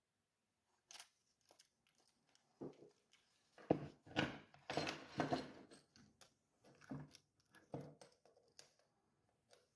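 Small RC car parts being handled and fitted by hand: irregular clicks, knocks and rustles, busiest around the middle.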